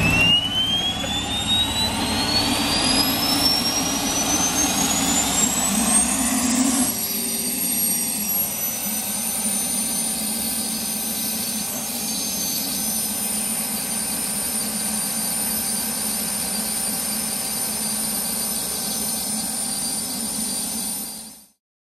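Small Solar gas turbine engine of the International Harvester HT-340 turbine tractor, running with a jet whine. Its pitch rises steadily for the first seven seconds or so, then holds at a very high, steady pitch over a lower rumble. The sound cuts off near the end.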